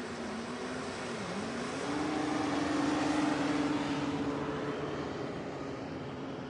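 Steady wind and surf noise at the water's edge of a sandy beach, swelling a little a few seconds in, with a faint low wavering hum underneath.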